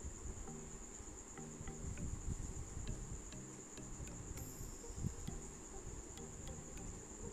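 Soft background music with a steady high-pitched whine or trill throughout, and faint scattered clicks as the cloth is handled.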